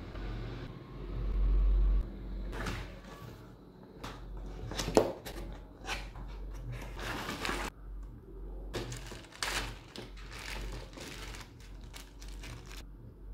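Irregular clicks, knocks and rustling of an object being handled, over a low steady hum; no drill motor is running.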